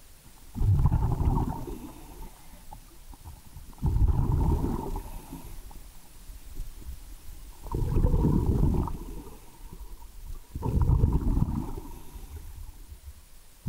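A scuba diver breathing underwater: the regulator's exhaled bubbles come in four low, bubbling rushes about a second long each, one every three to four seconds, with quieter gaps between.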